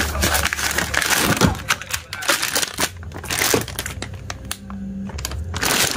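Plastic packaging bag crinkling and crackling as it is handled over a box of canned sardines, in an irregular run of small crackles and clicks.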